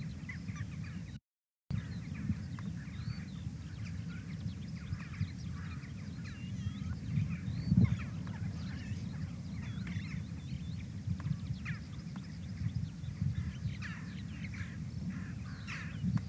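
Several birds chirping and calling in short rising and falling notes over a steady low rumble. The sound drops out completely for about half a second, about a second in.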